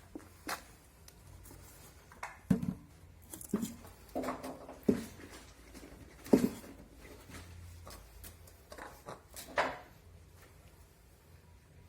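Scattered knocks, taps and clatter of hand work on washing machine parts during a bearing and seal repair, irregular and uneven in strength, with the loudest knock about six seconds in.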